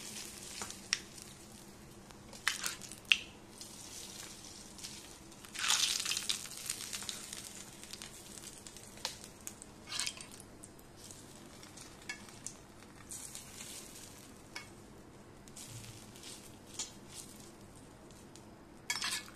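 A steel spoon scraping and tapping in a small pan and on steel plates as tempering oil with mustard and cumin seeds is spooned over dhokla: scattered short scrapes and clinks, with a longer scrape about six seconds in.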